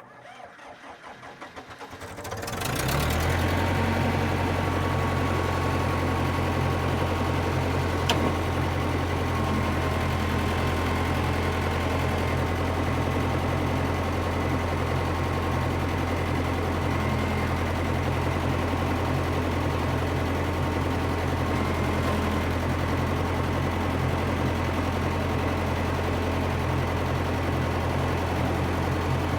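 Massey Ferguson MF 300 crawler dozer's engine cranking and catching over the first couple of seconds, then running steadily, with a single sharp click about eight seconds in. The engine is started to put pressure on a freshly field-repaired hydraulic cylinder and see whether the leak fix holds.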